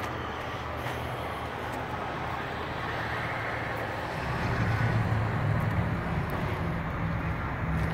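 A truck engine idling nearby: a steady low hum that grows louder about four seconds in.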